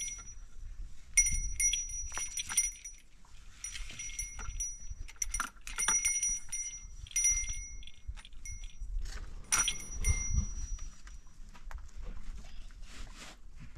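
Livestock bells ringing and clinking on and off, about half a dozen short rings a second or two apart, strongest in the first half.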